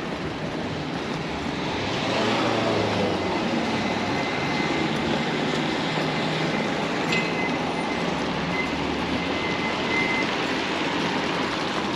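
Street traffic noise with a large vehicle passing close, growing louder about two seconds in and staying loud, with a faint high whine partway through.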